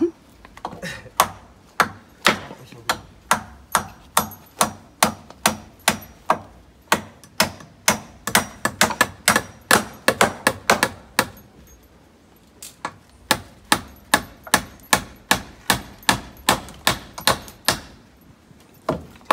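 A hammer driving nails into the timber of a wooden step, struck in a steady run of about two blows a second, with a short pause about twelve seconds in.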